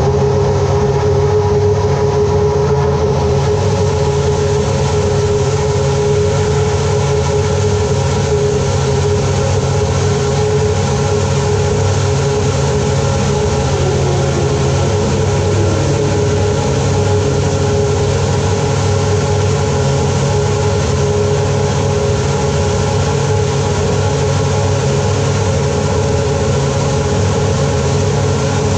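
Loud, steady machinery drone with a steady whine that dips slightly in pitch about halfway through.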